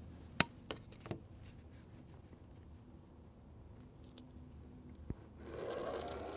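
Paper and a wooden ruler being handled on a desk: a few light clicks and taps in the first second, then near the end about a second of scratchy rustling as the ruler is held down and the pen comes to the paper.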